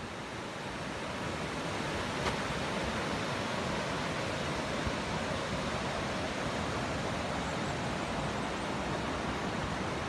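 Shallow stream water rushing and splashing over rocks in a steady rush, growing slightly louder over the first couple of seconds.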